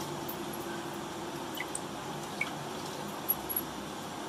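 Wet ground coconut mixture poured from a steel tumbler into tomato curry in a steel pan on a gas stove: a few faint ticks over a steady low hiss.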